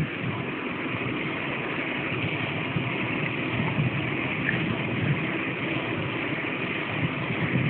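Motorcycle engine running steadily, heard from the rider's seat just behind the handlebars.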